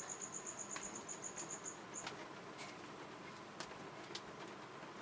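A high, rapid, even trill of about nine chirps a second, typical of a cricket, stops about two seconds in. A skipping rope slaps the floor in a few sharp, scattered taps.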